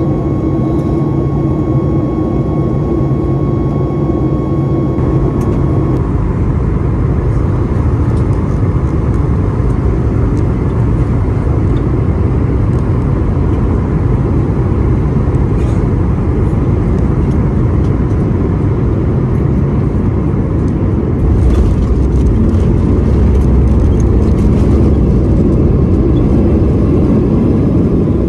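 Boeing 737 MAX jet noise heard inside the cabin: the CFM LEAP-1B engines and airflow making a loud, steady rumble. Faint steady whine tones fade out about five seconds in, and the rumble grows louder about 21 seconds in.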